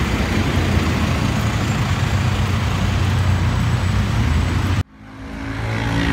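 Steady road traffic noise with vehicle engines running close by. About five seconds in, the sound cuts out abruptly and fades back in to a steady engine hum.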